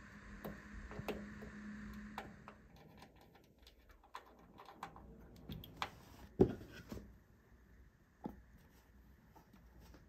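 Scattered light clicks and taps of a small screwdriver and PC hardware being handled during a build, with one sharper knock about six and a half seconds in.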